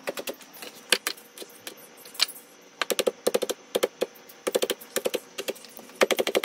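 Chef's knife chopping small red chili peppers on a plastic cutting board: sharp taps of the blade on the board, scattered at first, then in quick runs of several taps from about three seconds in.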